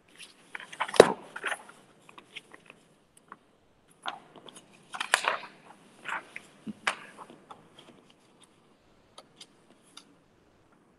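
Desk handling noises: scattered small clicks and knocks, the loudest about a second in, with a cluster around the middle and then sparse light ticks.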